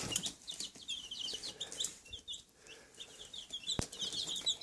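Baby chicks peeping, a steady stream of short high chirps. A single sharp click sounds near the end.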